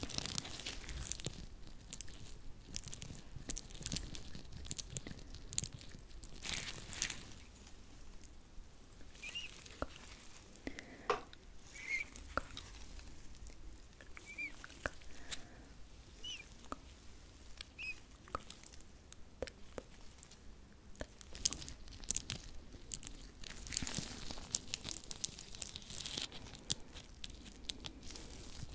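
Hands being rubbed and worked close to the microphone: dense irregular crackles and clicks, with a few short squeaks in the middle stretch.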